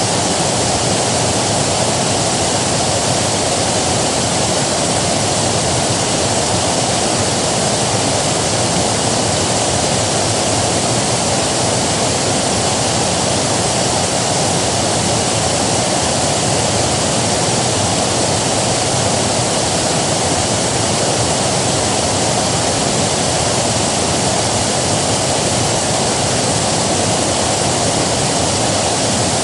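River water rushing steadily, a loud, even hiss of flowing water with no breaks.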